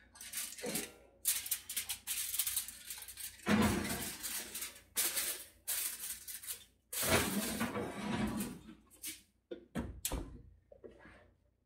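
Aluminium foil crinkling in irregular bursts, with a few short knocks of a loaf pan and oven rack, as a foil-tented loaf pan is put back into the oven.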